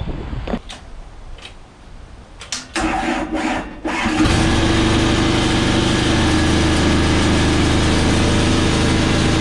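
An engine cranking with a few uneven strokes, catching about four seconds in, then running steadily at idle.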